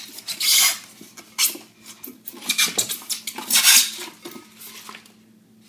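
Styrofoam packing scraping and rubbing against a glass mixer bowl, with packing paper rustling as it is pulled out, in several short noisy bursts.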